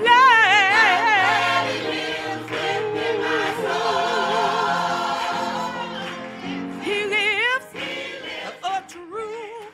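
Gospel choir singing with a lead voice in heavy vibrato, the choir holding long chords through the middle; the singing tapers off near the end.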